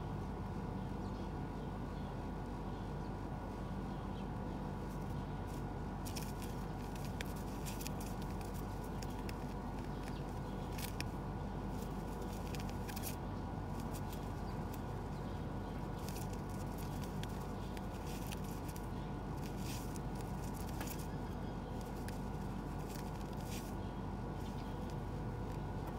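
Pigeons moving about: irregular soft scratches and clicks, coming thickest from about six seconds in until near the end, over a steady low background hum.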